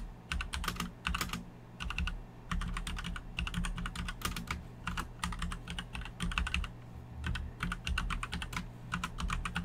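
Computer keyboard being typed on in quick bursts of key clicks, with short pauses between them.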